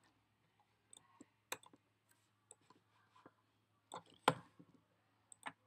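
Computer mouse clicking a handful of times at uneven intervals, the loudest click about four seconds in, over a faint steady low hum.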